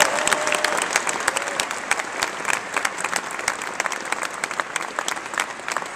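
Crowd applauding: dense, irregular hand clapping that thins out a little toward the end.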